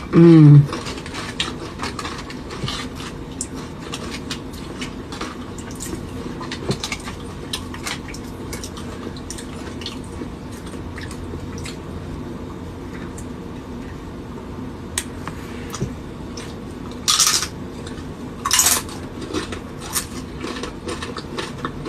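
Cutlery clicking and scraping against dishes during a mukbang meal, many small irregular clicks. A brief voice sound comes at the very start, and two louder rustling or crunching bursts come near the end.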